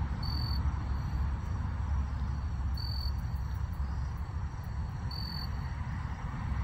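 Insect chirping, three short high-pitched chirps about two and a half seconds apart, over a steady low rumble.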